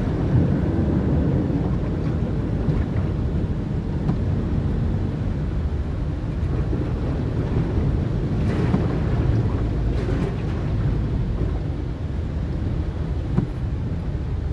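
A car driving slowly through deep floodwater, heard from inside the cabin: a steady low rumble of the engine and water rushing and sloshing around the wheels.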